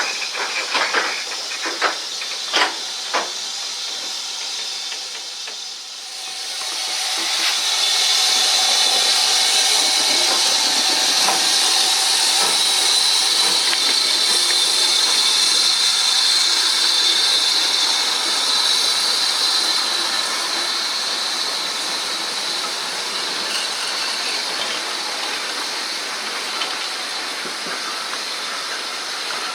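Steam hissing from the Large Prairie tank locomotive 5199, a GWR 2-6-2T. A few sharp knocks in the first three seconds, then a loud steady hiss swells up about six seconds in and eases a little after twenty seconds.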